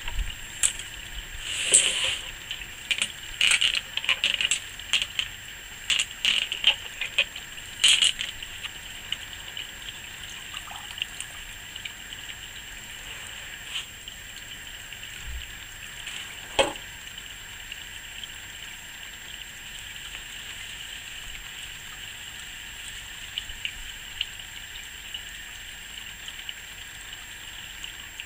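Water from a small solar-powered fountain pump splashing steadily into a plant-pot basin. Through the first eight seconds or so, sharp clicks and knocks come from pebbles being moved by hand, loudest about two seconds in and about eight seconds in.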